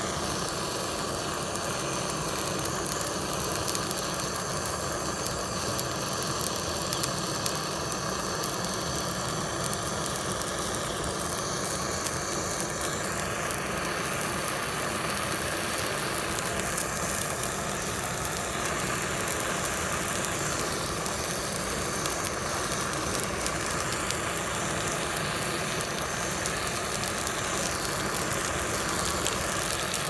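Butane gas torch flame running with a steady rushing hiss as it melts and sets fire to a plastic toy lorry.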